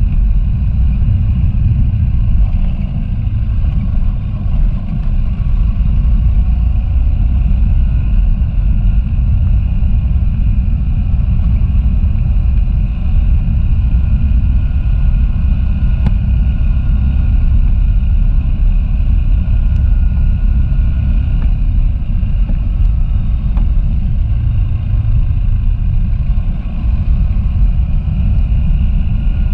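Motorcycle engine running steadily under way, with a heavy low rumble throughout.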